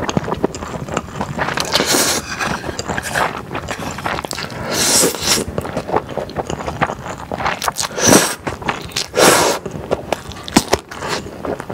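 Close-miked eating of thick Chinese glass noodles: slurping them in and chewing, with several louder slurps spread through.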